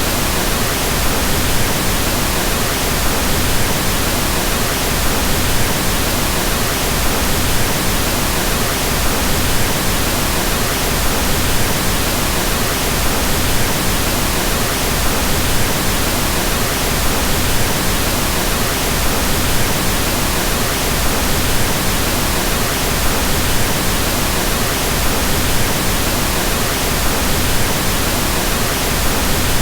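Continuous pink noise: a steady, even hiss that stays unchanged throughout.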